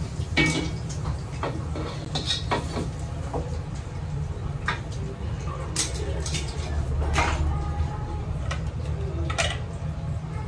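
Irregular metal clanks of a ladle and tongs striking a wok and pots at a wok range, over the steady low rumble of the range's gas burners.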